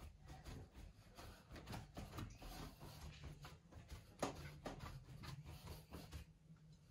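Hands kneading a large mass of bread dough in a flour-filled wooden trough: quiet, irregular soft pats and rustles of dough and flour, with one sharper pat about four seconds in.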